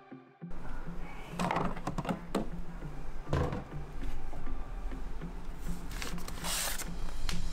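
Kitchen pantry being rummaged: a few knocks and clunks of items and the cupboard, then a paper flour bag rustling as it is handled about six seconds in, over a steady low hum.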